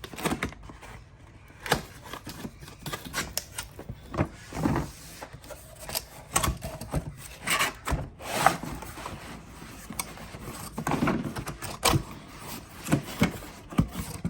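Cardboard product box being handled and turned over: irregular rubbing, scraping and light knocks.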